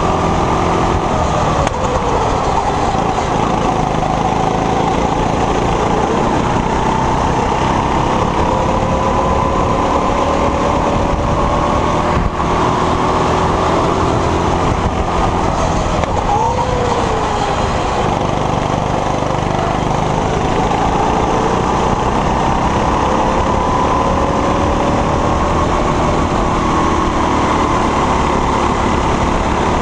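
Go-kart's Honda four-stroke engine running hard, heard close up from the driver's seat, its pitch rising and falling as the throttle is opened and eased through the corners.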